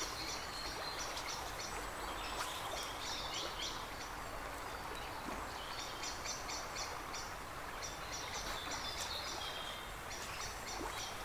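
Steady rush of river water, with a songbird singing short bursts of quick, high, repeated notes every couple of seconds.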